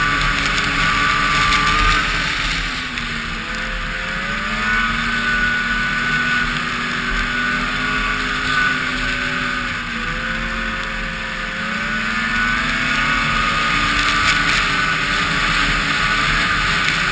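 2007 Polaris Dragon 700's two-stroke twin engine running at trail speed. Its pitch drops as the throttle eases off about two seconds in and again around ten seconds, then rises back. A steady rush of wind noise runs under it.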